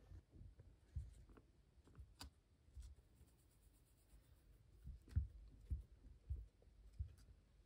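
A long-haired guinea pig's faint, irregular scratches and clicks as it shuffles about on the mat and nibbles at a wooden chew stick.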